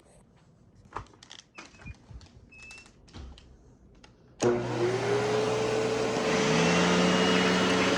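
A few light clicks and handling knocks, then about halfway in a Panasonic vacuum cleaner switches on suddenly. Its motor spins up with a rising hum and then runs steadily.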